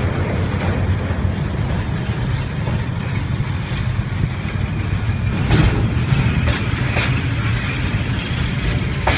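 Toy train running on its model-railway track: a steady low rumble from the motor and wheels, with sharp clicks from about halfway through as the wheels pass over rail joints.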